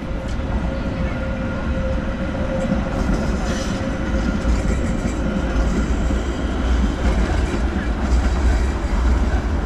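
Articulated low-floor city tram passing close by on its rails, with a steady whine in the first few seconds and a louder hiss of wheels on rail as it goes past about four seconds in, over a low rumble.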